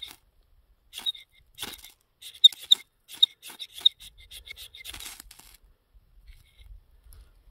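Ferro rod scraped in a run of quick, sharp strokes, throwing sparks onto lip balm smeared into bark. The strokes come in a burst and stop about five and a half seconds in.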